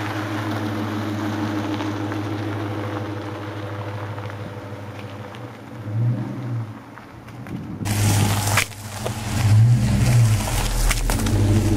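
A car driving on a gravel road: the engine runs steadily and fades as the car pulls away. About two-thirds through, the engine is suddenly louder and close, with tyres crunching gravel as the car rolls over a polymer rifle magazine.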